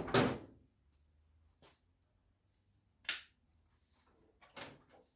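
A few separate knocks and clicks of handling in a small room: a thud at the start, a sharp click about three seconds in, and a softer knock near the end.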